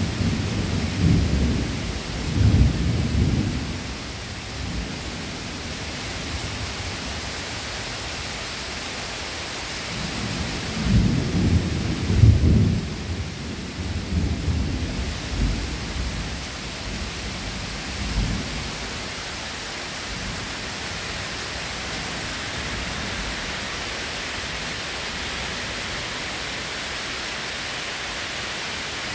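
Thunder rumbling in rolls over a steady hiss of rain: a long roll in the first few seconds, a louder one about eleven seconds in, and a short one near eighteen seconds, after which only the rain hiss remains.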